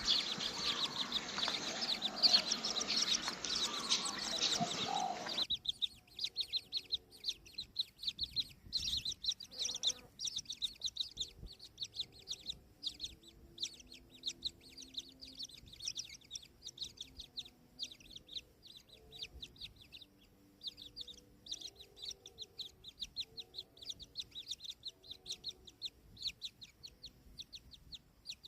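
Bird chirping: a dense, loud chatter for the first five seconds or so. It changes suddenly to rapid, high, short chirps repeating several times a second, with faint low clucking calls underneath.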